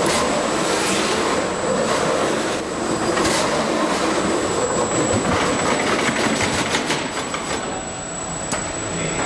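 Stretch-wrapping machine running as its rotating arm winds clear plastic film around a motorcycle on a transport cart: a steady mechanical noise, with a run of rapid clicks about five to seven seconds in.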